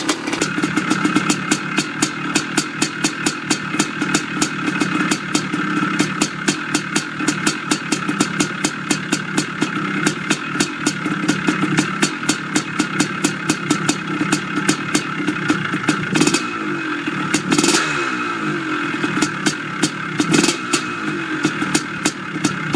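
Two-stroke dirt bike engine running with a steady, regular beat, its pitch shifting up and down briefly past the middle.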